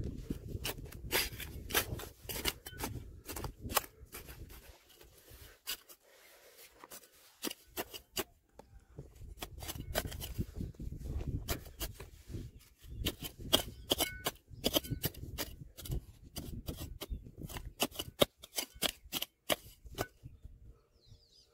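Hand digging tool chipping and scraping at hard stone and soil: a run of irregular sharp clicks and scrapes, thinning out for a few seconds about four seconds in.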